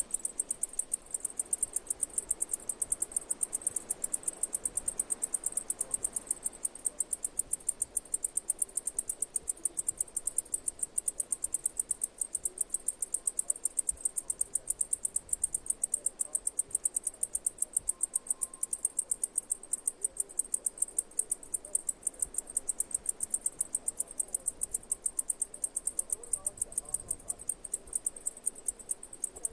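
Insect chirping: a high-pitched chirp repeated at an even, rapid rhythm, several times a second, without a break.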